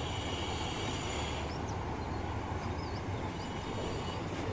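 Steady low background rumble, with a few faint, short high chirps about midway.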